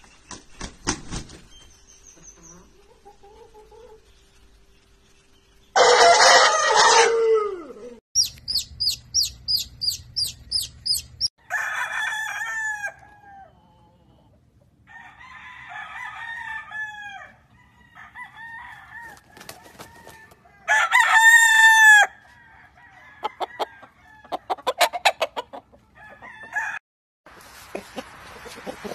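Roosters crowing one after another: several separate crows, the loudest about six seconds in and again about two-thirds of the way through. After the first loud crow comes a quick run of about ten repeated calls, and there is clucking between the crows. Wings flap briefly near the start.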